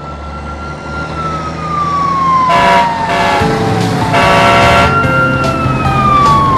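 Fire engine siren wailing in slow sweeps: it rises, sinks slowly, then climbs again about halfway through and falls once more. Three short, bright ringing bursts sound over it in the middle.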